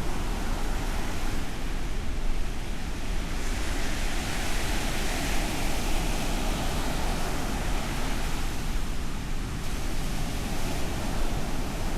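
Ocean surf: a steady rush of breaking waves, with one wave surging up in a louder hiss about three seconds in and washing away by about ten seconds.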